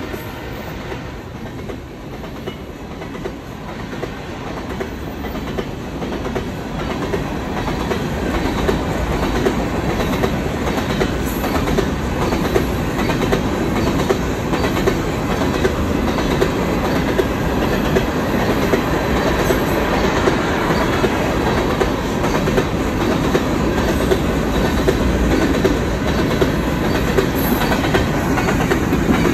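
Covered hopper cars of a freight train rolling past close by, their steel wheels clacking over the rail joints. The sound grows louder over the first several seconds, then holds steady.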